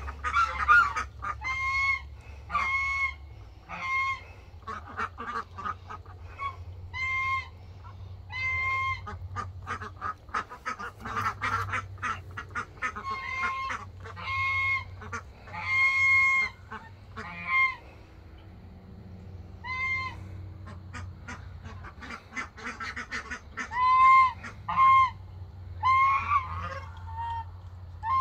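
Domestic geese honking: short, flat-pitched honks repeated every second or two, with fainter short calls from the flock in between.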